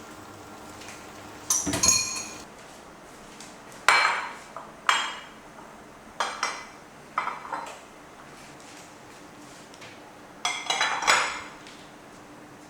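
Dishes and utensils clinking and clattering in about six separate bursts of knocks, some leaving a short ringing.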